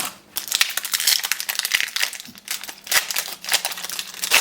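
Crinkling of a trading-card booster pack wrapper being handled and torn open by hand: a dense, unbroken run of crackles.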